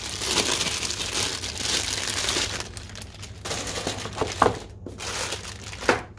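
Clear plastic wrapping crinkling and rustling as it is handled and pulled off a packed unit, in two stretches, with a couple of light knocks in the second half.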